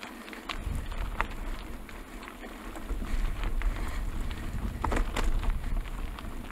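Trek Roscoe 6 mountain bike tyres rolling over gravel trail, with a steady crackle and scattered ticks from stones and the bike, and wind rumbling on the camera microphone.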